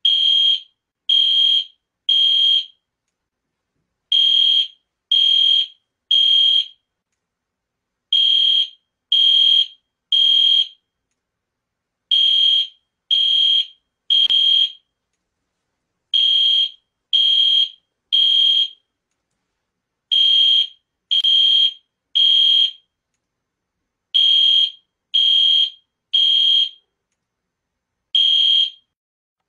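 Fire alarm horn-strobe sounding the temporal-three evacuation pattern: three loud, high, steady-pitched beeps about a second apart, then a pause, repeating about every four seconds. Near the end one group is cut short to a single beep.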